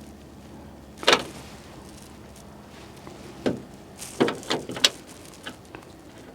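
A series of sharp clicks and knocks from pliers and hands working a plastic windshield washer sprayer and its clips in the hood. The loudest is about a second in, and a quick cluster follows between about three and a half and five seconds in.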